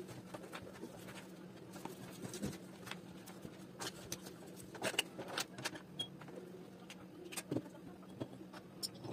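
Light clicks and taps of small objects (pens, earbuds, a tablet) being handled and set down on a desk, over a faint steady hum, with a pen put into a glass jar near the end.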